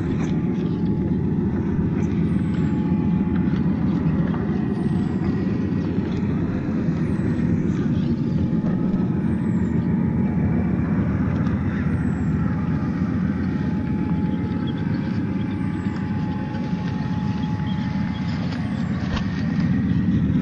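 Traxxas TRX-4 1/10-scale RC crawler driving off-road: its stock electric motor and geared drivetrain run steadily, with a dense low rumble and a faint steady whine.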